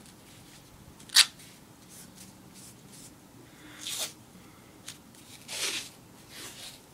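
White athletic tape being pulled off the roll and torn while an ankle is wrapped: a sharp, loud rip about a second in, then longer ripping pulls near four seconds and five and a half seconds, and a faint one near the end.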